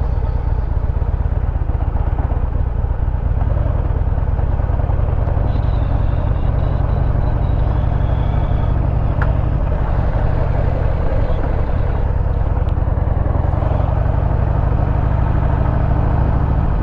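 Motorcycle engine running steadily as the bike rides along, its exhaust a constant low drone.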